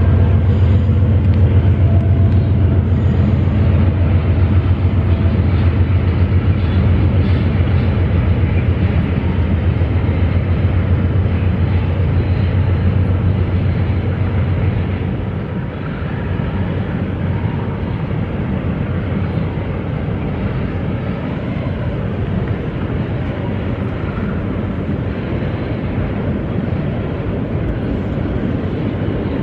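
A GE ES43BBi diesel-electric locomotive's 12-cylinder GEVO engine runs loud and low as the freight train passes. About halfway through the engine sound fades, leaving the steady rumble of the train rolling by.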